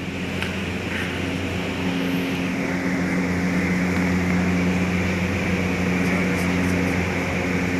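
Steady machinery hum of a gondola terminal as the cabins roll slowly through the station: a low, even drone with several held tones under a rushing noise.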